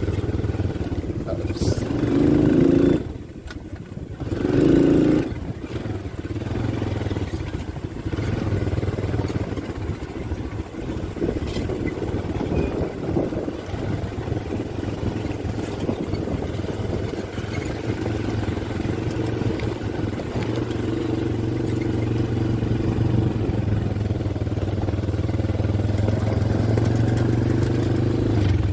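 Small vehicle engines of quad bikes running steadily while riding along a dirt farm track, swelling louder briefly about two and five seconds in.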